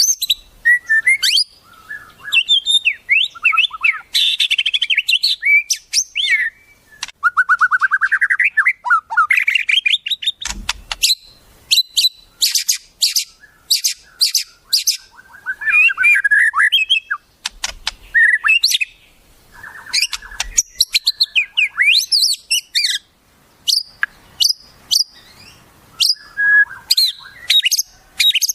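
Wild songbird calls in a dense, varied string of sharp chirps, whistled phrases and fast trills with short pauses, including a long run of rapid notes rising in pitch about eight seconds in.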